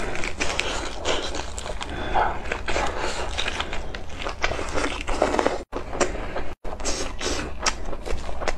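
Close-up chewing of a mouthful of grilled sausage rolled in spicy cabbage: wet, crackly munching with many small clicks. The sound cuts out briefly twice a little past the middle.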